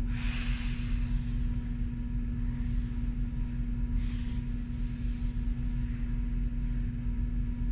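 Steady low droning hum throughout, with a few short breathy exhales, about one every one to two seconds, from a woman working through stability-ball core reps.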